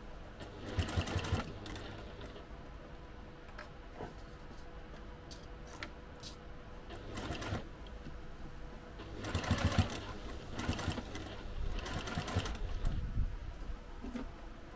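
Domestic sewing machine stitching through layered fabric in several short runs, stopping and starting, with small clicks in the pauses between runs.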